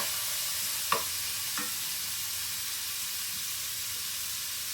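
Diced chicken breast sizzling steadily in sesame oil in a skillet, with two light clicks about a second in.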